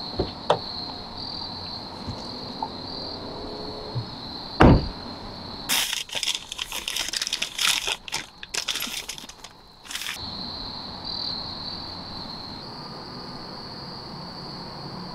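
Crickets chirping steadily, with a few sharp clicks and one heavy thump about four and a half seconds in. Then about four seconds of dense crackling and rustling, like crumpled paper.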